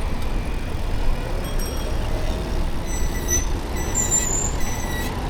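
Road traffic heard from a moving bicycle in a city street: a steady rumble of passing vehicles, with faint high-pitched tones from about one and a half seconds in to near the end.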